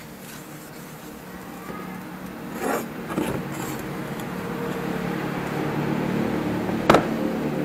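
A low motor hum that grows steadily louder, with some rustling partway through and a single sharp knock near the end, the loudest moment.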